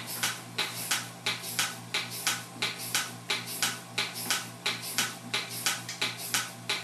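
Simple Pulse goat milking machine running: its pulsator clicks evenly about twice a second over the steady hum of the vacuum pump.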